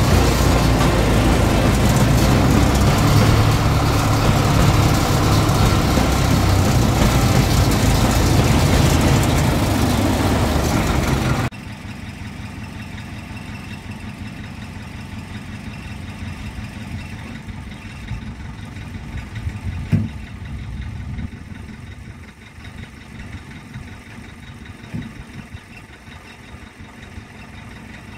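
Csepel D350 fire truck's diesel engine running loudly, heard from inside the cab, after more than twenty years laid up. About eleven seconds in the sound cuts abruptly to the same kind of engine idling much more quietly, with a single sharp knock later on.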